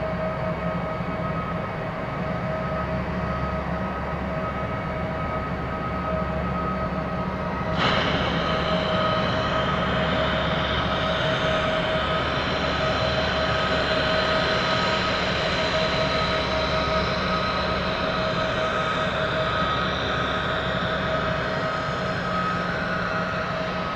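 Jet airliner running at the airport: a steady whine with two held tones over a broad rush. About eight seconds in it suddenly gets louder and brighter, then holds.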